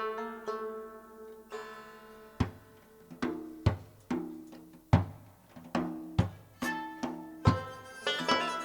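Live Pamiri folk music: a plucked string instrument playing ringing notes, joined about two seconds in by a hand drum striking a steady rhythm. The ensemble grows fuller near the end.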